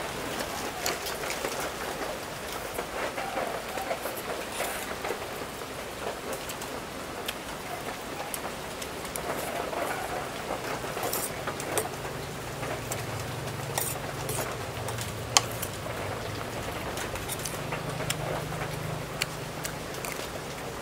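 Rain falling steadily, an even patter with scattered sharp taps of drops. In the second half a low hum rises and fades twice.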